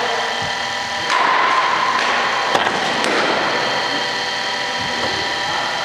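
A cricket bat striking a ball: a couple of sharp knocks near the middle. Underneath is a steady machine-like hum and hiss that gets louder about a second in.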